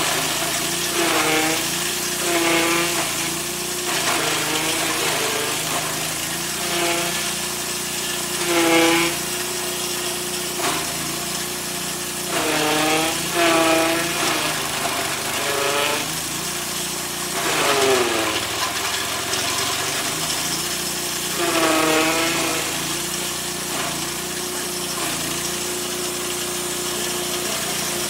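Petrol-engine-driven grass chopper running, its blades shredding grass and leaves as they are fed in. The machine's note repeatedly sags and recovers as each armful goes in, about ten times, with the deepest drop about two-thirds of the way through.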